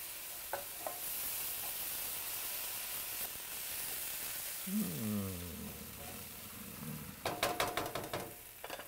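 Butter, flour and wine sauce sizzling in a stainless steel sauté pan while a wooden spoon stirs it. About five seconds in there is a brief falling hum from a voice, and near the end a quick run of clinks.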